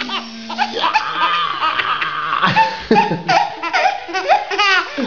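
A baby laughing hard in rapid, high-pitched bursts of giggles that break off and start again throughout.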